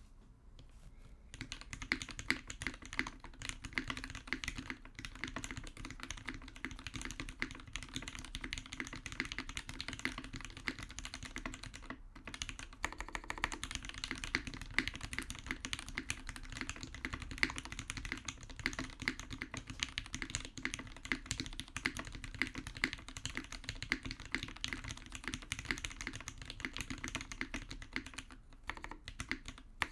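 Continuous fast typing on a TGR 910 RE mechanical keyboard with a brass plate and no sound dampening, fitted with lubed H1 switches with Milky Gateron top housings and GMK keycaps. The key clacks start about a second and a half in and run on steadily, with a brief pause near the middle.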